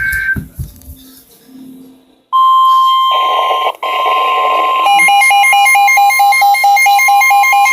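A weather radio sounds its steady warning alarm tone, the 1050 Hz tone that signals a new warning. A few seconds later a fast electronic beeping, about four beeps a second, joins it from the receiver's alert.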